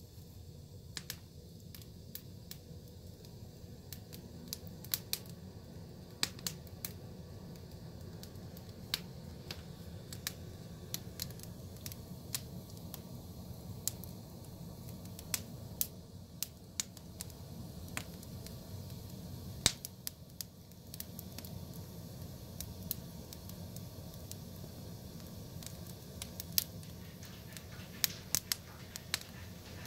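Split wood logs burning in a fireplace, crackling with frequent irregular sharp pops over a low steady rumble; one pop about two-thirds of the way through is louder than the rest.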